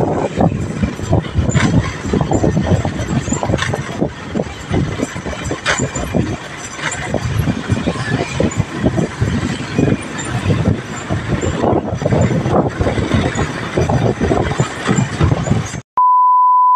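Wind buffeting the microphone over the running of a motorcycle's engine while riding along a road. Near the end this cuts off, and a steady high test-tone beep sounds for under a second with the colour-bars transition.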